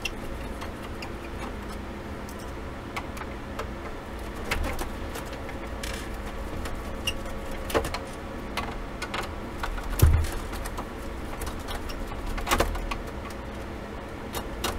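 Screwdriver work on the metal stand hinge of a Dell Inspiron 3475 all-in-one: scattered small clicks, with a few louder knocks (the loudest about ten seconds in), as the four tight hinge screws are worked out. A steady low hum runs underneath.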